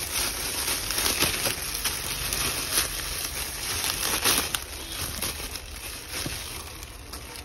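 Thin plastic packaging crinkling and rustling as slides are pulled out of their polythene wrapping, with sharp crackles throughout.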